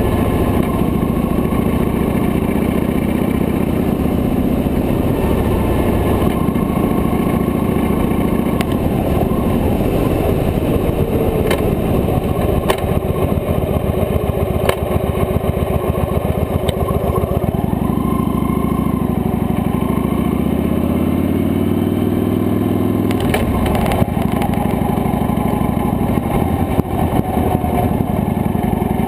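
Victory High Ball motorcycle's 106-cubic-inch V-twin engine running on the move, recorded up close from the handlebars. About two-thirds of the way through, its pitch rises as the bike accelerates.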